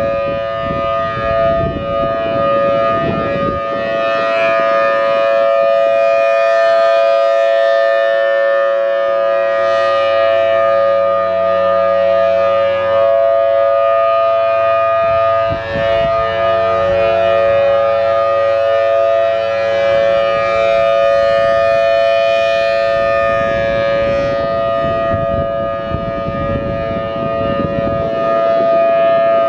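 Federal Signal Thunderbolt 1000T outdoor warning siren sounding its steady alert tone, the pitch held constant while the rotating horn sweeps around and the loudness swells and dips slightly.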